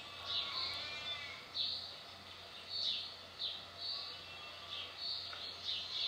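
Small birds chirping: short high calls repeating every second or so, with one longer, wavering call about a second in.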